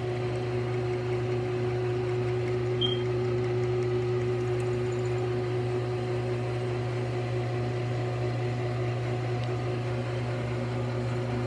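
Metal lathe running, its chuck spinning a piece of steel, with a steady hum from the motor and headstock.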